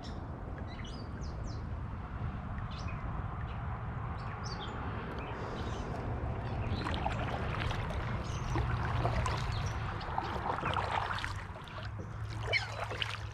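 Outdoor lakeside ambience: birds chirping, mostly in the first few seconds, over a steady low hum and a continuous rustling noise.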